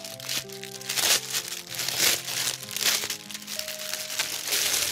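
Clear plastic sleeve around a canvas tote bag crinkling in several loud bursts, about a second apart, as it is handled and pulled off the bag. Soft background music plays underneath.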